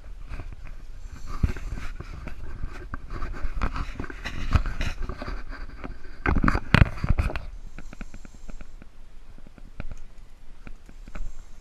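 Close rustling and knocking of clothing and gear against the camera as someone walks on foot. A louder cluster of knocks comes about six to seven seconds in, then lighter scattered ticks follow.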